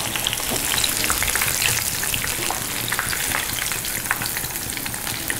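Batter-coated quail pieces deep-frying in hot oil, a steady crackling sizzle, as they are stirred and scooped out with a wire spider strainer once fried through.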